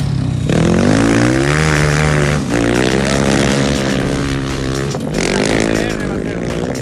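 A rally vehicle's engine revving under load, its pitch dropping, climbing and holding several times as it accelerates and shifts gear.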